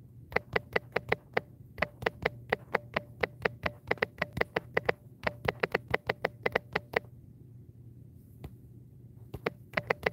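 Rapid keystroke taps of typing on a smartphone's on-screen keyboard, about four or five a second, stopping briefly about seven seconds in and picking up again for a few taps near the end.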